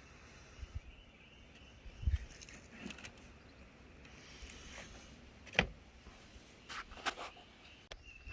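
Scattered sharp clicks and knocks of hands working on the engine's ignition coil pack and its plastic connector, the loudest about five and a half seconds in.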